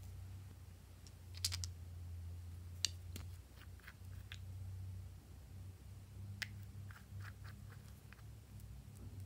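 Scattered small plastic clicks and ticks from hands handling slime containers and add-ins, over a low steady hum.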